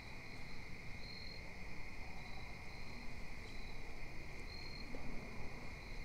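Insect chorus of crickets: a steady high trill, with short chirps repeating a little over a second apart.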